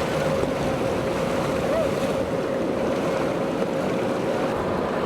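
A boat's motor running steadily, with a constant hum, under a dense wash of wind and water noise. The hum fades out near the end.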